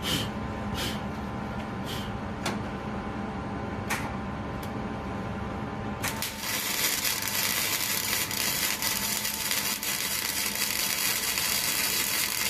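Electric arc welding on a steel truck frame bracket: a few short crackling bursts over a steady hum, then from about halfway on a continuous crackling arc as a longer weld bead is run.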